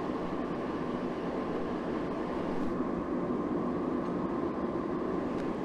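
Forge running with a steady, even rushing noise and a faint constant hum, heating steel billets for forge welding.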